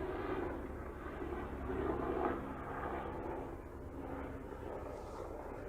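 Helicopter flying close by: a steady engine and rotor drone, a little fainter in the second half.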